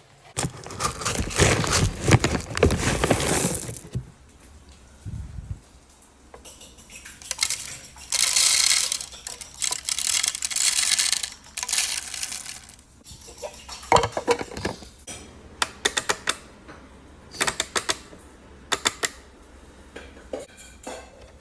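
De'Longhi electric burr coffee grinder in use. There is rattling and clattering in the first few seconds, then the grinder runs steadily for about six seconds in the middle, followed by a series of sharp clicks and taps of plastic parts being handled.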